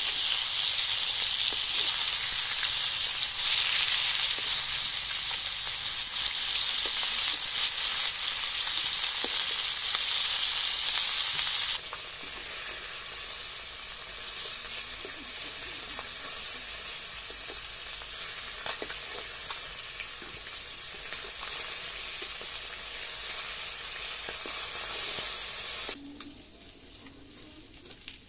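Pieces of rohu fish frying and sizzling in an iron kadai, turned with a metal spatula that scrapes and taps against the pan. The sizzle drops abruptly in level twice: about twelve seconds in and again near the end.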